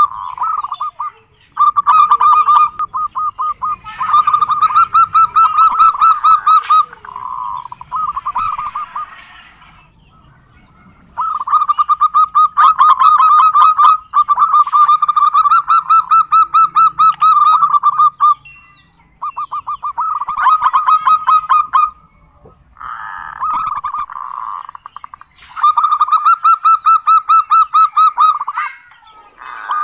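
Zebra dove (perkutut) giving its rapid rattling 'kerot' call, a fast run of repeated notes, in bouts of a few seconds with short pauses between.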